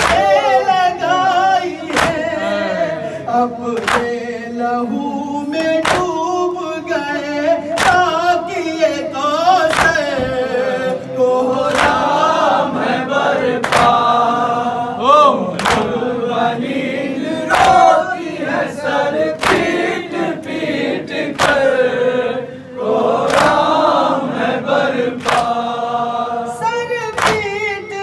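An Urdu noha lament sung by a male reciter into a microphone, with men's voices joining in. The mourners strike their chests together in matam, a sharp slap about every two seconds that keeps the beat.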